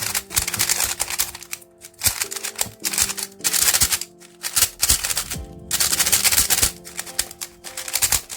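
Rapid clacking of a magnetic 3x3 speedcube being turned fast, in bursts of quick turns with short pauses between them. Background music plays underneath.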